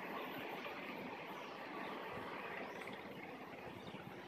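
Fading rumble of a freight train of tank wagons moving away along the track, dying down slowly.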